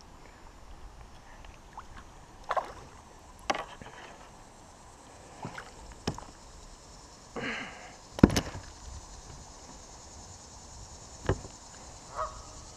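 A handful of sharp knocks and bumps on a plastic sit-on-top kayak, the loudest a little past the middle, with a short scuffing noise just before it, as a freshly caught smallmouth bass is brought aboard and handled.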